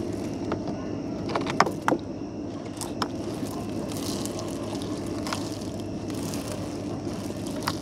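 A steady low motor hum, with several sharp clicks and knocks scattered over it.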